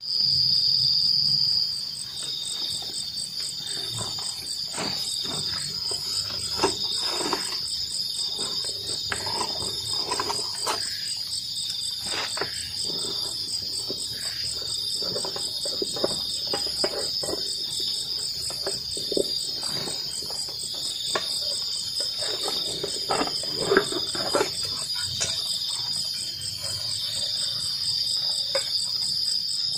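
Night insects, crickets among them, chirring steadily in high tones with a fast pulsing trill above. Scattered rustles, clicks and knocks as a backpack and a cooking pot are handled.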